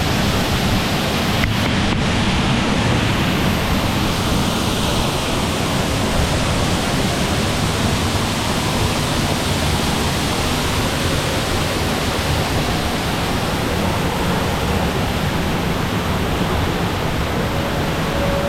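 Waterfall close by: a steady, even rush of falling water.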